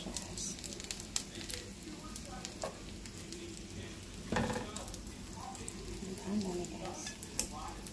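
Hot oil sizzling in a frying pan used for pan-frying breaded chicken nuggets, with many scattered sharp pops. A single dull knock about four seconds in.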